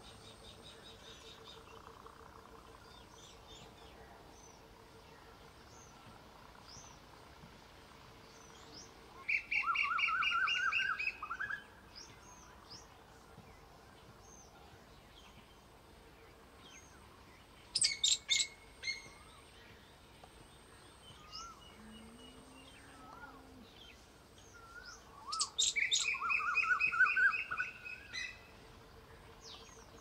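Small songbirds singing and chirping. A loud burst of rapid trilling song comes about nine seconds in, sharp chirps just after halfway, and another long trilling burst about five seconds before the end, with faint scattered chirps between them over a faint steady hum.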